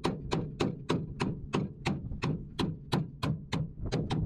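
Sledgehammer striking a steel drift pin in a steady run of sharp metal-on-metal blows, about four a second. It is driving a stubborn hydraulic cylinder pin out of a boom lift's bushing.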